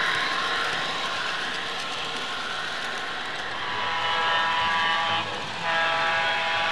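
Sound-equipped model train's speaker blowing a multi-note chime horn in two long blasts, about halfway through and near the end, the second running on past the end. Before that, only a steady hiss of the running layout.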